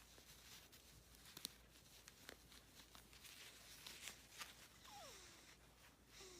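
Near silence: a quiet room with scattered faint clicks and soft rustles. About five seconds in there is one faint, short squeak that falls in pitch.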